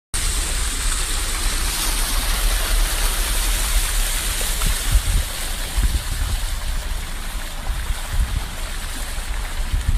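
Floodwater rushing and splashing, with a steady hiss of heavy rain, over a low rumble from the vehicle moving through the runoff.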